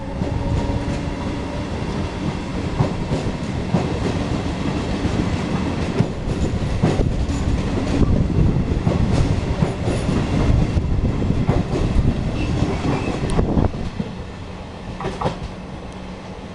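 Regional express train's passenger coaches rolling past as the train pulls out of the station, wheels clicking and clattering over the rail joints. The noise drops sharply about fourteen seconds in as the last coach goes by, leaving a fainter steady hum.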